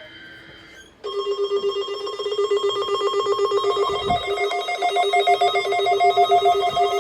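Electronic alert tone starting about a second in: a rapidly pulsing, ring-like warble on one low pitch, joined about halfway through by a second, higher tone.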